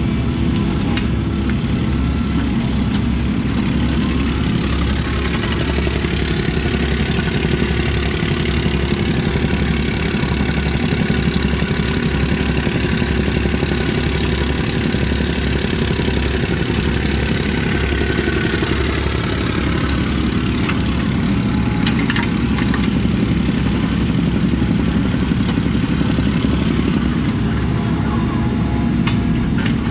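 Diesel engine of a working construction machine running steadily.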